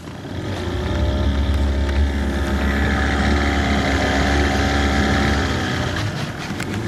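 Small outboard motor on an inflatable boat, running steadily. It gets louder over the first second and eases off near the end.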